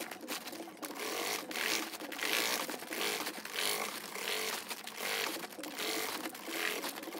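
Industrial sewing machine stitching a folded seam, with the thin, crinkly bag fabric rustling as it is fed through. The sound swells and eases in repeated surges.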